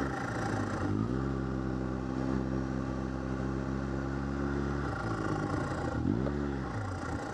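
Arctic Cat F1100 Turbo snowmobile's four-stroke twin-cylinder engine, heard from the rider's seat, running at a steady pitch. About five seconds in it comes off the throttle, gives one short rev up and back down, then settles lower as the sled slows.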